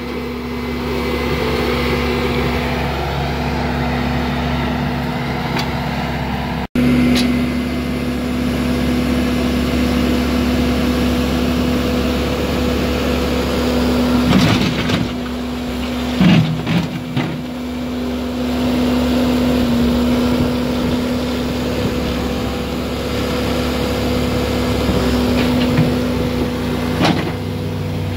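Bobcat skid-steer loader's diesel engine running steadily at a constant speed. A few short clatters of bricks landing come around the middle and near the end.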